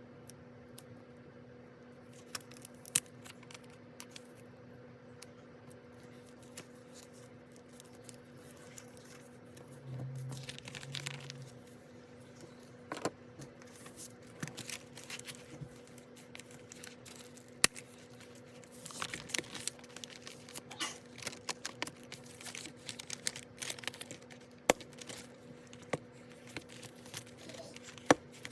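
Paper being handled at a desk while working in a system planner: rustling and crinkling of sheets with many small sharp clicks and taps, busier in the last third, over a steady low hum.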